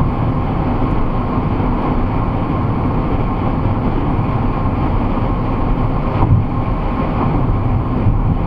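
Steady road and engine noise inside a car's cabin at motorway speed: tyre rumble and a low drone with some wind hiss. There is a light bump about six seconds in.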